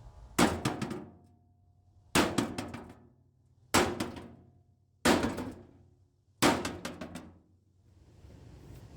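Sledgehammer blows on the dented metal bed of a lawn cart, knocking the dent out: five heavy strikes about a second and a half apart, each with a short metallic ring and rattle.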